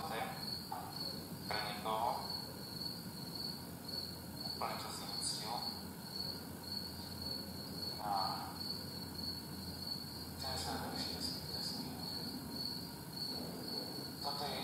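A cricket chirping in a steady, evenly pulsed high trill, with a few faint, brief murmurs now and then.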